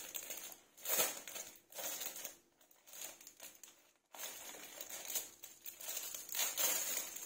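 Clear plastic packaging sleeve crinkling and rustling as a diary is worked out of it, in irregular bursts with a brief pause about four seconds in.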